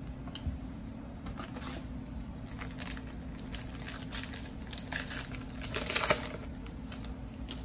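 Foil trading-card pack wrapper crinkling and tearing as a pack is ripped open, a run of crackles that is loudest about six seconds in.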